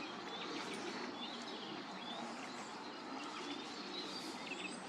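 Several small birds chirping and calling over a steady outdoor background hiss.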